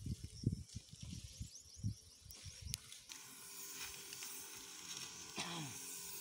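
Wind buffeting the microphone, with faint insect chirps, then a steady hiss from a backpack sprayer's nozzle spraying herbicide mist.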